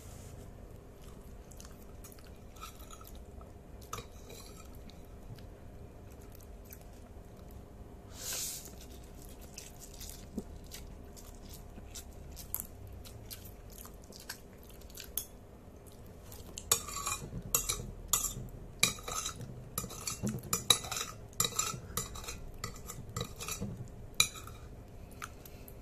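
Metal spoon clinking and scraping against a plate while scooping instant noodles, scattered at first and then a quick run of clinks in the second half.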